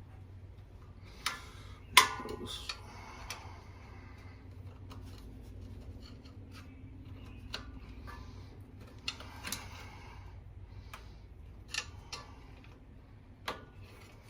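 Hand tools and hose clamps being worked on an engine's bypass hose: scattered sharp metal clicks and clinks, the loudest about two seconds in, with scraping and rubbing between them.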